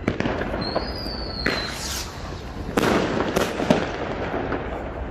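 Fireworks going off: a bang, then a high whistle for about a second, followed by several bursts and crackles, the loudest about three seconds in.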